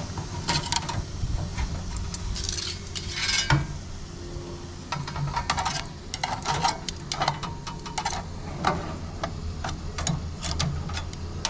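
Stainless steel tongs clinking and scraping against the metal wood-chip tray of a Coolabah smoker as the tray is handled: a string of light metal clanks and clicks at irregular intervals, over a steady low hum.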